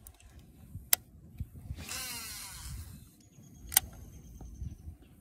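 Baitcasting reel clicking sharply twice, with a whirring spin of the spool lasting about a second between the clicks: the spool paying out line on a cast.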